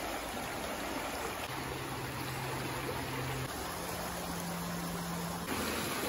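Shallow rocky stream flowing over stones and tree roots: a steady rush of running water.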